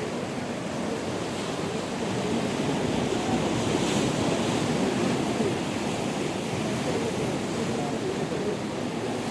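Sea surf washing onto the shore in a continuous rush, swelling a little louder midway, with wind on the microphone.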